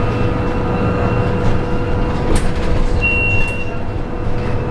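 Cabin noise of an Irisbus Civis trolleybus under way: a steady rumble with a thin, steady electric whine over it. A short click, then a brief high tone, about halfway through.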